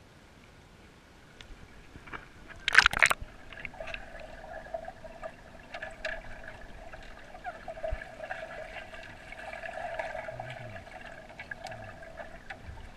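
A short loud splash about three seconds in as the action camera plunges into swimming-pool water, then muffled underwater sound: a steady hum with faint gurgling and small ticks.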